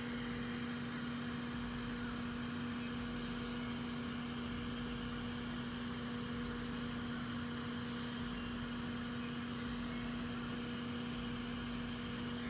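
Steady mechanical hum holding one constant low pitch, with no rise, fall or break.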